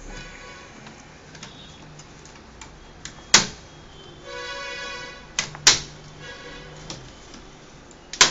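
Plastic snap-fit clips of a laptop's LCD bezel popping loose as the panels are pried apart with a thin screwdriver: three loud sharp snaps, the last near the end, among smaller ticks, with brief high steady whining tones between.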